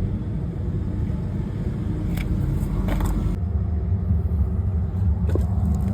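A steady low rumble with a few light clicks or knocks.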